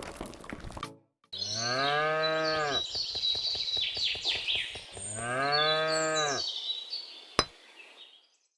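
Cow mooing twice, each a long call that rises and falls in pitch, with a rough, pulsing sound between the two calls and high chirping above.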